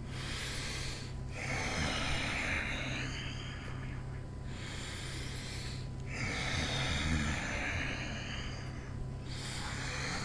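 A man breathing slowly and deeply in and out, long audible breaths of a few seconds each, about two full in-and-out cycles, as a deliberate breathing exercise.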